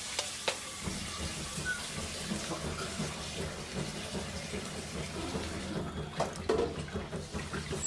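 Water running steadily, with a few light knocks.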